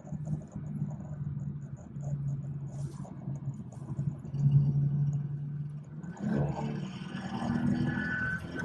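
BMW 440i's B58 turbocharged straight-six and road noise heard from inside the cabin while driving: a steady low drone, growing louder and busier with rising pitch from about six seconds in.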